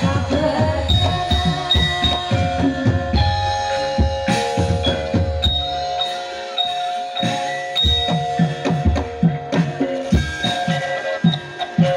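Live Javanese gamelan playing for a jaran kepang dance: hand-drum strokes under a melody of ringing bronze metallophones. The drums pause briefly about halfway through, leaving the metallophones ringing on their own.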